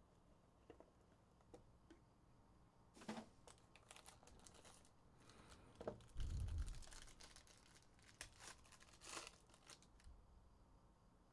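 Faint tearing and crinkling of the plastic wrap on a Panini Prime Racing hobby box as it is unwrapped, in several short bursts, with a soft low thump about six seconds in as the box is handled on the table.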